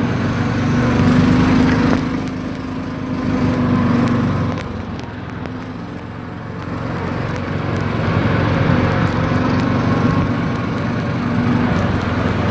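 ATV engine running while under way on a gravel trail. Its pitch and loudness rise and fall with the throttle, easing off about four and a half seconds in and picking back up a couple of seconds later.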